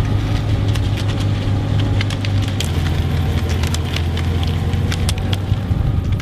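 Steady low hum of a slow-moving vehicle's engine that drops slightly in pitch about two and a half seconds in, over a fast, irregular clatter of sharp clicks from rollerski pole tips striking the asphalt.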